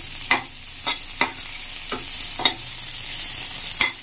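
Sliced onions sizzling in hot mustard oil in a steel kadhai, with a perforated steel spatula scraping against the pan about six times as they are stirred.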